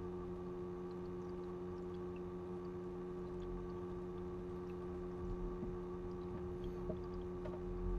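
Small 9 V submersible water pump of a homemade laptop water-cooling loop running with a steady, multi-tone hum; the owner says the pump is noisy because it was damaged earlier by being run while choked off. A few faint clicks sit over it in the second half.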